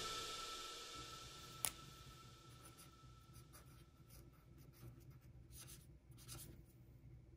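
Faint scratching of a fine-tip pen on paper, several quick strokes as a signature is written. One short click about one and a half seconds in, and the tail of music fading out at the start.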